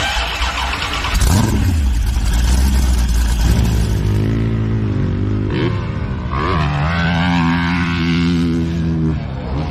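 Engines revving hard, starting abruptly. The pitch sweeps up and down several times over a steady low engine note.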